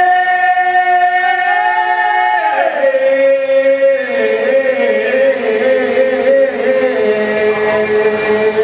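A man's solo voice chanting a song into a microphone, unaccompanied, the drums silent. He holds long notes, stepping down in pitch twice, with a wavering, ornamented passage in the middle.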